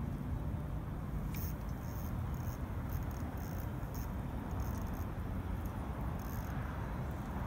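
Spinning reel being cranked in short spurts while a small hooked trout is reeled in, giving rapid high clicking bursts about twice a second, after a single sharp click a little over a second in. Wind rumbles low on the microphone.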